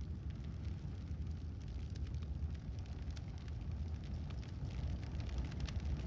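Fire sound effect: a steady deep rumble of burning with many small, sharp crackles throughout.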